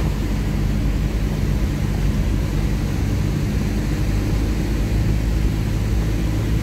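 Engine and road noise of an SUV heard from inside its cabin while driving, a steady low rumble.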